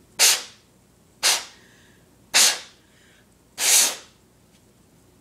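Four short, loud blasts of air, about a second apart, each a rushing hiss that dies away quickly, blowing dust out of an Xbox 360's cooling fan.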